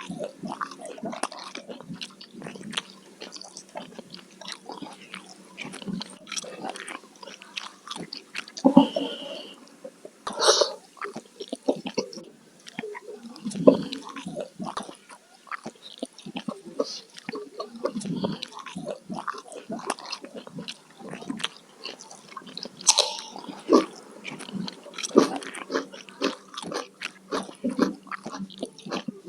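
Close-miked eating: continuous wet chewing and mouth smacking, a steady run of short clicks, with a few louder bites or crunches scattered through.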